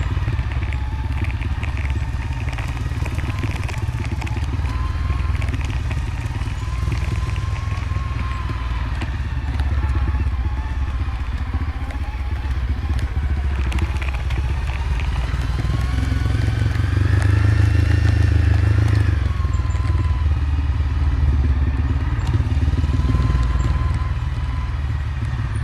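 Motorcycle engine running under way on a dirt road, with wind and rattling from the rough surface; the engine swells and rises in pitch from about 16 to 19 seconds in, then settles back.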